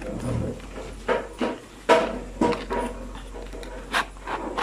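Containers and packaging being handled: several short knocks, with rubbing in between.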